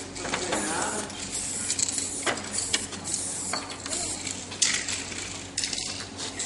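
Aerosol spray-paint can spraying in several short hissing bursts, with sharp clicks between them.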